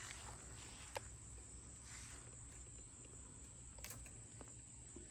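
Faint, steady, high-pitched drone of insects, with a couple of sharp clicks, one about a second in and one near four seconds.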